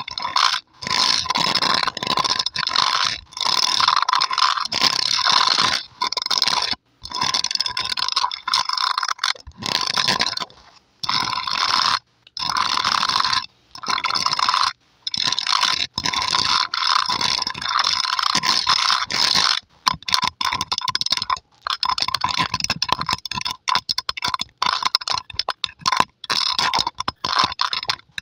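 Long red-polished fingernails scratching and scraping over a microphone's metal mesh grille, right against it, in runs of rapid strokes broken by short pauses every few seconds.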